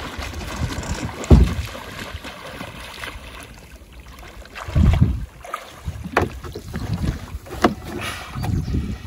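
Wind buffeting the microphone over water moving around a small boat, with a few dull thumps: the loudest about a second in, another near the middle, and some lighter knocks later.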